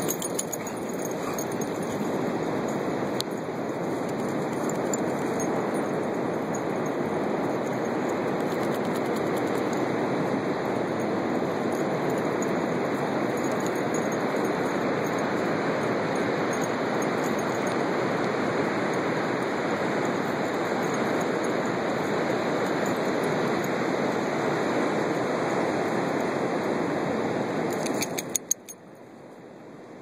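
Steady rushing beach noise from surf and wind on a phone microphone. About two seconds before the end it drops away abruptly, with a few clicks.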